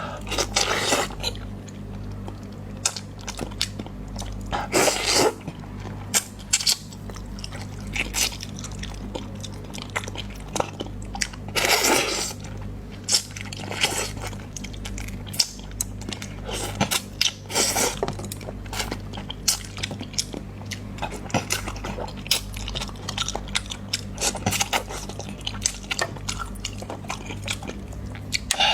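Close-miked eating: chewing and mouth clicks throughout, with a few louder noisy bursts about five, twelve and seventeen seconds in. A steady low hum sits underneath.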